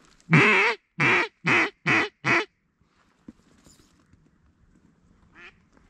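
Mallard duck call blown in a hen cadence: five loud quacks in quick succession, about half a second apart, the first the longest and loudest.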